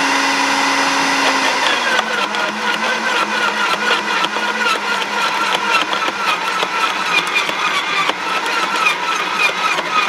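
Sun Joe electric wood chipper running, its motor note dropping about a second and a half in as it slows under the load of a bundle of pruned branches. Rapid, constant crackling and snapping as the branches are chopped into mulch.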